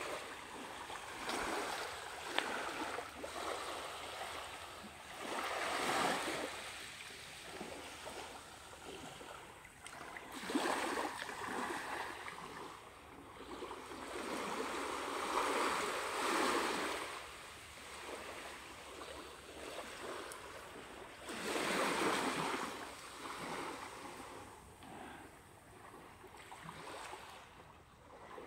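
Small waves washing up onto a sandy shore, swelling and fading every few seconds, with four louder washes.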